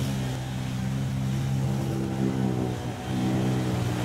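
Quad bike (ATV) engines running at a steady pitch over the rush and splash of fast-flowing water, the engine sound dipping briefly about three seconds in.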